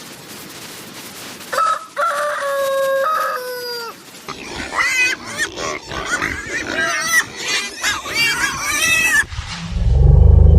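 A rooster crows once, a long call that drops in pitch at the end, followed by several seconds of a busy jumble of short animal calls that fit clucking and squealing. Near the end a loud, low rumble starts.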